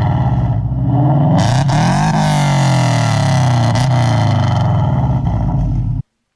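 2006 Subaru Impreza's flat-four engine, freshly tuned and fitted with unequal-length headers and a cat-back exhaust, being revved: the pitch rises and falls several times. The sound cuts off suddenly near the end.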